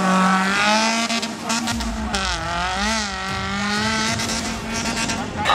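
Off-road race vehicle engine revving hard, its pitch wavering and gliding up and down, with a deeper rumble joining about two seconds in.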